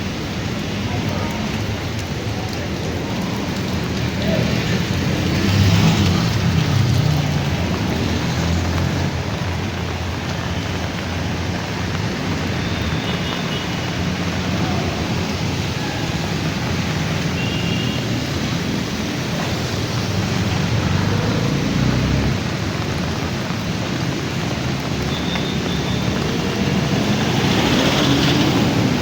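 Heavy rain falling steadily on a city street, with the noise of traffic mixed in and swelling twice as vehicles pass.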